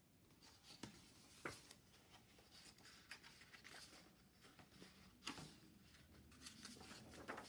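Faint rustling of a picture book's paper pages being turned, with a few soft taps and brushes as the pages are handled.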